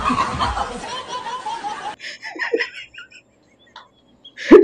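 A dense, noisy stretch of clip audio cuts off suddenly about two seconds in. A man then laughs in short chuckling bursts, with a louder laugh near the end.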